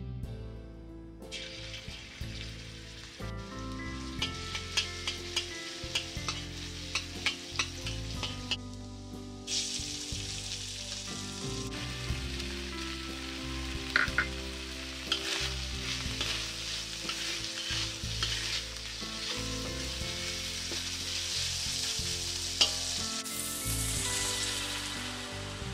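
Meat sizzling in hot oil in a black wok, with a metal spatula scraping and clicking against the wok as it is stir-fried. Near the end water is poured in and the sizzle turns to a louder, brighter hiss.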